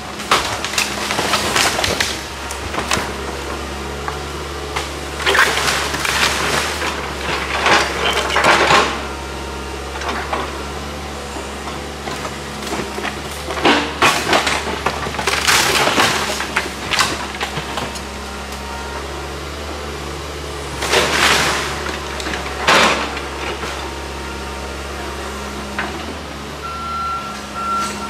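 Excavator demolishing a wood-frame cottage: timber framing and sheathing cracking, splintering and crunching in four bouts of a few seconds each, over the steady running of the machine's engine.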